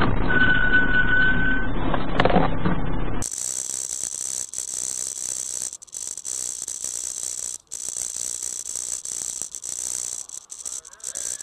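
Dashcam audio of a road crash: loud wind and road noise with a held high squeal for over a second and a knock about two seconds in. Then, after a cut, the quieter cabin sound of a moving car, rattling, with a steady high hiss.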